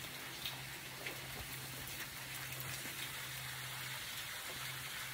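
Rain falling: a faint, steady patter with scattered drops ticking.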